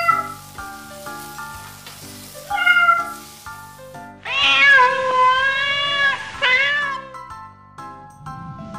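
A cat meowing three times over light background music of short repeated notes: a short meow at the start, another near three seconds in, then a long wavering meow lasting about three seconds.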